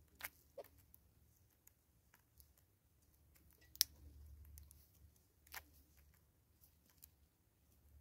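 Southern red-billed hornbill pecking seed off a wooden stump: its bill gives a few scattered sharp clicks and taps against the wood and grain, the loudest about four seconds in.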